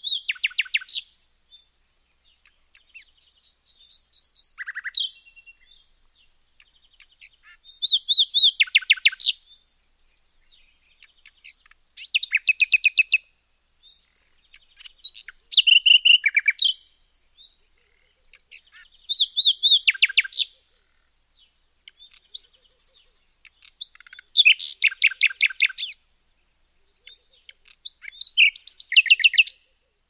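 A songbird singing the same short phrase over and over, about once every four seconds. Each phrase is a quick run of high repeated notes lasting one to two seconds, with the notes dropping in pitch near its end.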